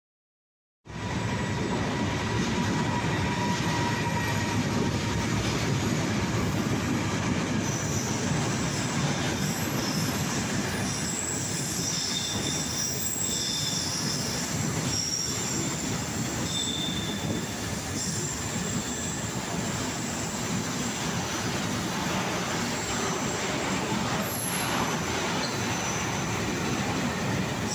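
Container freight train rolling steadily past on the station track, a continuous rumble of wagon wheels on rail with intermittent high-pitched wheel squeal. The sound begins about a second in.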